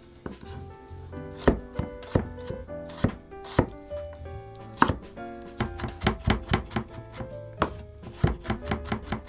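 Chef's knife mincing garlic cloves on a wooden cutting board: sharp knocks of the blade on the wood, spaced out at first, then a quicker run of chops from about halfway.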